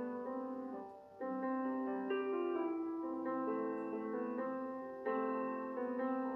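Background piano music: slow, sustained chords that change about once a second.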